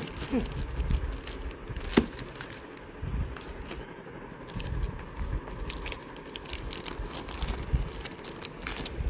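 Clear plastic sleeves crinkling and crackling as a stack of packaged small artworks is handled and shuffled, with scattered clicks and a sharper snap about two seconds in.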